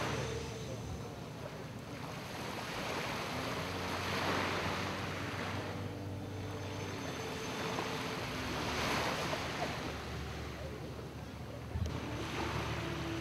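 A boat engine runs at a steady hum over open water. Over it, rushing wind and water noise swells and fades every four to five seconds, and a single sharp tick comes near the end.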